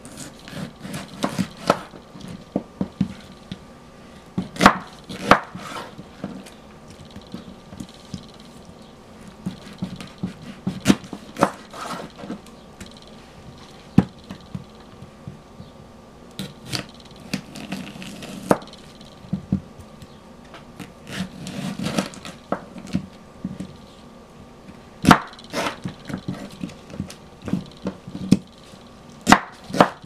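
Kitchen knife slicing pickling cucumbers lengthwise into spears on a wooden cutting board: irregular sharp knocks of the blade striking the board, in clusters with short pauses between.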